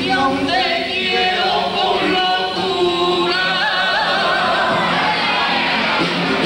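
Cádiz carnival comparsa, a male chorus, singing in harmony; the voices come in together right at the start.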